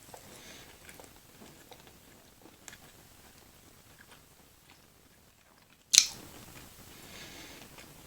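Close-up eating sounds: soft wet chewing and small mouth clicks, then one sharp, loud crunching bite about six seconds in.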